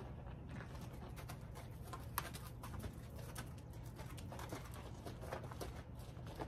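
Horse's hooves stepping on packed dirt as it walks past, a string of soft, uneven footfalls with one sharper click about two seconds in.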